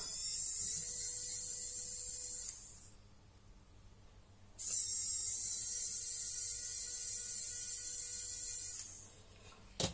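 Electric precision screwdriver whirring as it backs out the two Phillips screws of an airsoft motor's end bell, in two steady runs. The first stops about two and a half seconds in; the second starts about two seconds later and runs for about four seconds.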